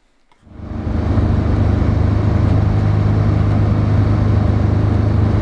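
Car engine and road noise heard from inside the cabin while driving at a steady speed, fading in about half a second in and then holding level.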